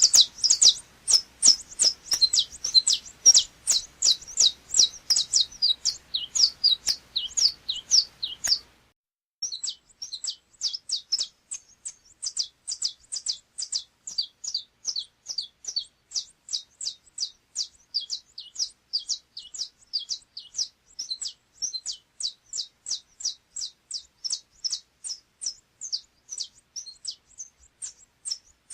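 Saffron finch (canário-da-terra of the 'chapinha' song type) singing a long run of sharp, rapid notes, about four or five a second. The song breaks off briefly about nine seconds in, then carries on.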